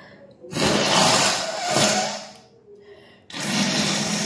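A person forcefully clearing mucus with a cold: two long, harsh blasts of breath, the first about two seconds long and the second starting about three seconds in.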